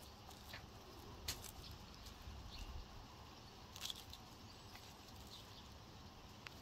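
Faint crisp rustling and small clicks of raw onion slices being pulled apart into rings on a wooden cutting board, with two sharper clicks, one about a second in and one near four seconds, over a low background hum.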